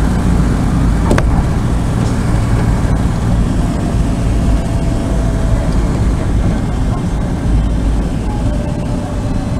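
DC-3's radial engines running at low power while the plane taxis, heard from inside the cabin as a steady low rumble. A single sharp click comes about a second in.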